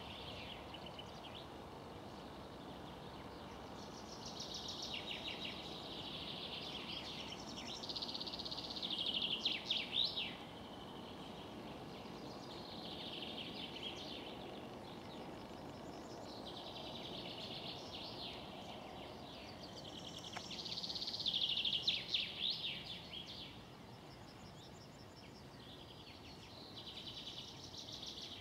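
Small birds singing in high, quick chirping and trilling phrases every few seconds, the loudest twice, with short sweeping whistles, over a steady low background noise.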